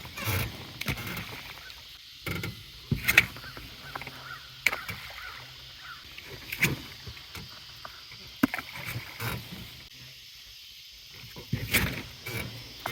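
Scattered knocks and clunks of handling inside a small fishing boat, coming irregularly about every second or so.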